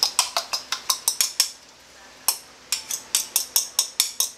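A utensil clicking and scraping against a ceramic bowl in quick repeated strokes, about five or six a second, as beaten egg is scraped out of it into the pan. The clicking stops briefly about a second and a half in, then starts again.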